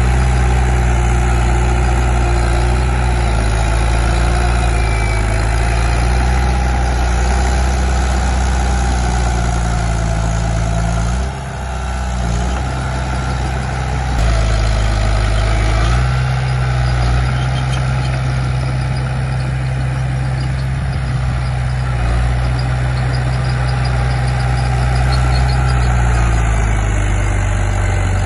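Komatsu D31P bulldozer's diesel engine running under load as it pushes soil, with a steady low drone. The note drops briefly about eleven seconds in, then picks up again and shifts pitch a few times.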